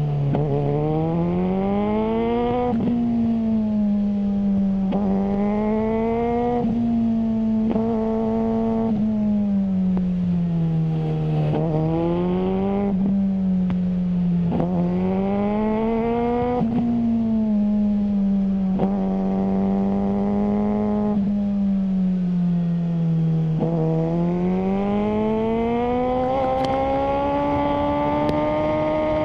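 Suzuki GSR600 inline-four engine through a GPR Ghost aftermarket exhaust, with the motorcycle under way. The engine note rises again and again as it pulls, then drops back with each gear change or lift of the throttle, about ten times over.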